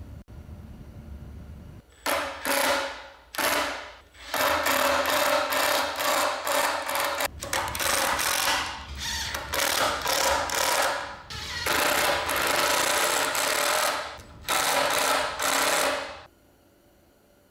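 Makita 18V cordless impact driver sinking 2½-inch construction screws into 2x4s: about seven runs of rapid hammering, each one to three seconds long, starting about two seconds in and stopping shortly before the end.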